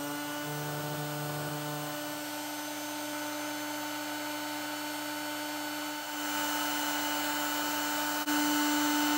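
Electric heat gun running: its fan motor gives a steady whine over a rush of air, and it steps up in level near the end. It is heating a wax-coated paper capacitor to soften the wax.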